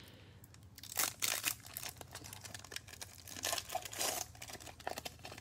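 Foil wrapper of a Donruss football card pack crinkling as it is torn open by hand, in a run of irregular crackles that starts about a second in.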